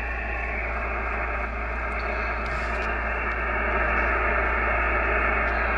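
Steady hiss and static from an ICOM IC-7300 transceiver's speaker, tuned to 3.865 MHz lower sideband with no station on it, over a steady low hum; it grows slightly louder partway through. The owner puts the noise down to interference from his solar power system.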